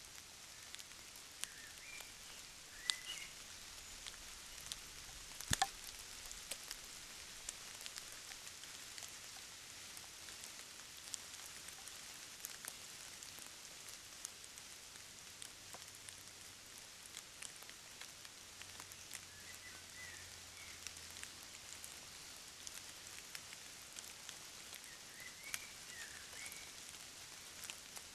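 Faint outdoor trail-camera sound: a steady hiss scattered with small irregular ticks and crackles, the sharpest clicks about three and five and a half seconds in. Brief faint high chirps come near the start, in the middle and near the end.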